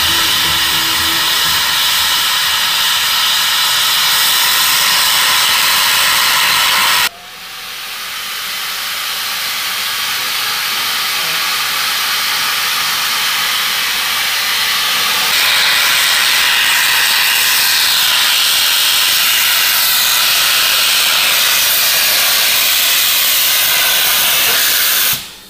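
Steam locomotive's cylinder drain cocks blowing off steam in a loud, steady hiss. The hiss breaks off sharply about seven seconds in, builds back up, and cuts off suddenly near the end.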